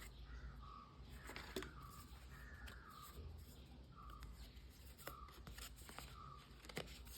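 Faint repeated short calls from a bird, each dropping in pitch, about one a second, with a few sharp clicks of packaging being handled.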